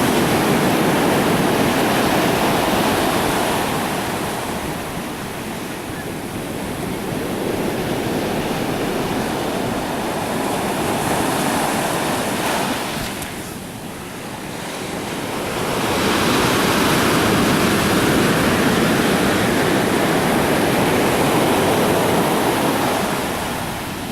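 Pacific Ocean surf washing up the beach, a steady roar of breaking waves that swells and ebbs, dropping away briefly about halfway through before the next wave builds it up again. Some wind on the microphone.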